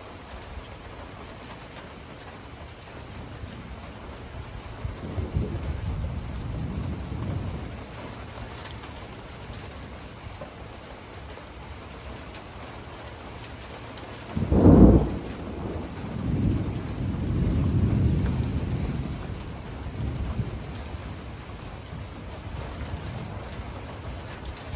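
Steady rain with thunder: low rumbles about five seconds in, then a sharp, loud thunderclap about fifteen seconds in that rolls on as a rumble for several seconds.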